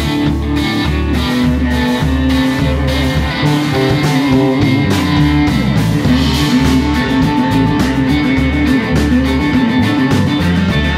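Live rock band playing: two electric guitars, a Stratocaster-style and a Telecaster-style, play over a bass line and a steady beat.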